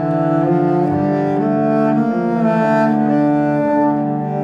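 Background music: slow, sustained bowed-string notes in a low register that shift pitch every second or so.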